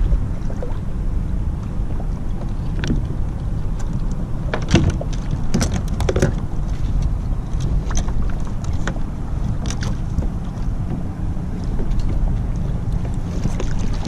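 Wind rumbling on an action camera's microphone with choppy water lapping against a plastic fishing kayak. Short clicks and knocks come through it, mostly about five to six seconds in.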